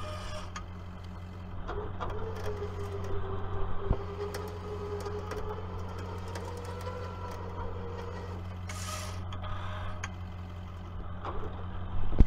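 Tow truck engine running steadily under a winch's whine as the cable pulls on a tipped-over mini excavator; the whine wavers in pitch and dies away about eight seconds in. A few sharp clicks and a short hiss near nine seconds.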